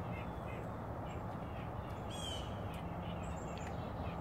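Steady outdoor background noise with distant bird calls: a short run of repeated calls near the start, a sharper call about two seconds in, and a few faint high chirps.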